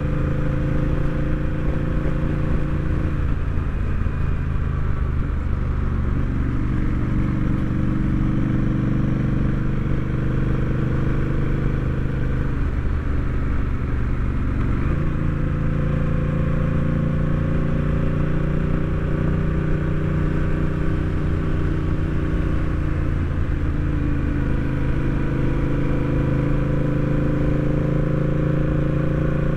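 Honda Rebel 1100's parallel-twin engine running steadily while riding, its note shifting in pitch a few times as the bike speeds up and eases off, over wind rumble.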